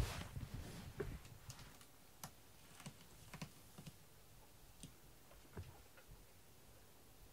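A loud brief bump and rustle right at the start, then faint, scattered light clicks and taps, a few each second at most.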